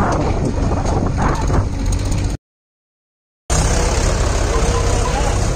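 Mahindra 575 DI tractor's four-cylinder diesel engine running under heavy load as it hauls a fully loaded soil trolley, front wheels lifting. The sound cuts out completely for about a second midway, then the engine comes back at the same steady level.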